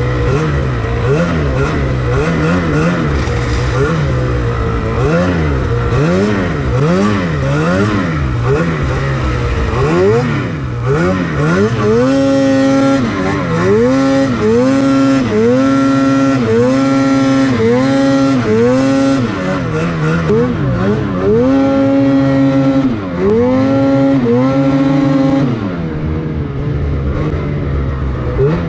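Lynx Boondocker RE 3700 Shorty's 850 E-TEC two-stroke engine revving hard under load in deep snow. It rises and falls about once a second at first, then holds high revs with short throttle lifts every second or so, and eases off near the end.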